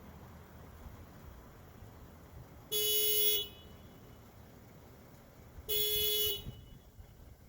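Toyota Sienna minivan's horn sounding twice in short, steady single-pitch blasts about three seconds apart, fired by a Techstream diagnostic active test.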